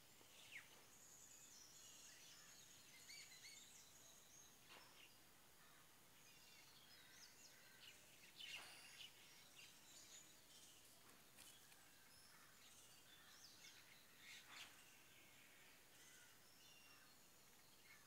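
Faint chirps and short calls of birds, scattered here and there, over a low steady hiss of outdoor background noise.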